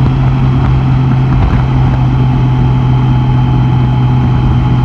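Honda Gold Wing motorcycle running at a steady cruise: a constant low engine drone over an even rush of wind and road noise.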